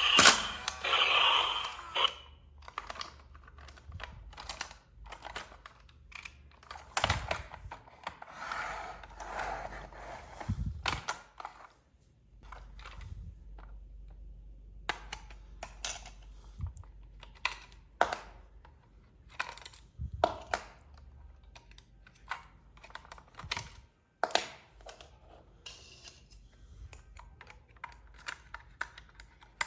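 Irregular light clicks, taps and short rustles of plastic toy parts and packaging being handled during an RC car unboxing. A louder pitched sound fades out in the first two seconds.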